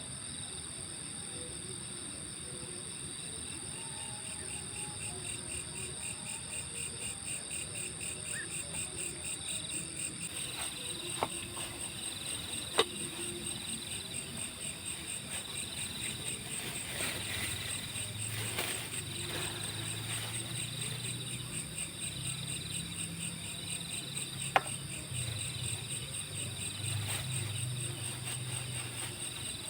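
Insects, crickets by their sound, trilling steadily: one high continuous trill and a lower chirp that repeats in an even rhythm. A few sharp clicks stand out above it.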